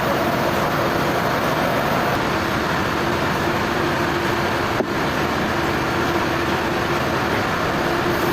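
Sawmill machinery running steadily, a dense even noise with a faint steady hum, and a single short click about five seconds in.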